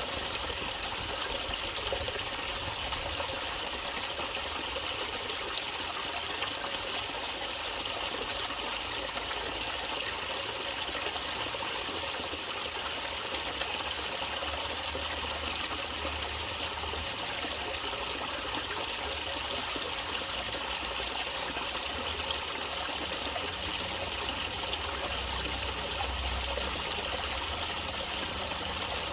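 A natural stream of water flowing and trickling steadily, with a low rumble underneath that swells now and then.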